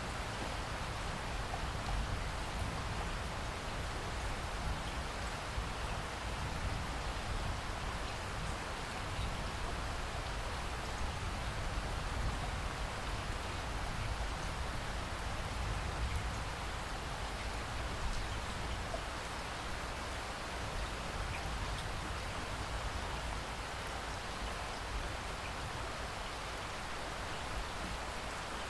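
Steady rain falling: a dense, even hiss of many drops that holds at one level, with no thunder in it.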